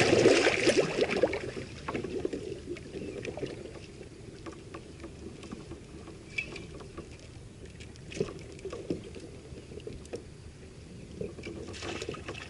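Water splashing and lapping against a kayak hull, louder in the first second or so, then a quieter wash with scattered light knocks and clicks from rod and gear handling while a hooked fish is played.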